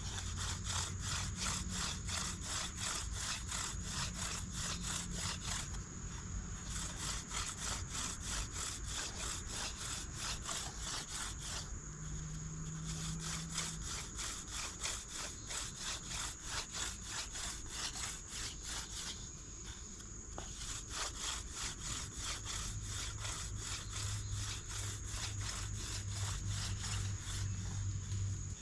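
Hand-drill fire by friction: a horseweed spindle twirled between the palms and grinding into a wooden fireboard, making rapid rhythmic rubbing strokes, about four a second. The strokes break off briefly every six or seven seconds, then start again. The aim is to build smoke and char toward an ember.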